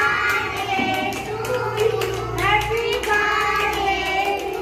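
Young children singing together and clapping along in a regular beat.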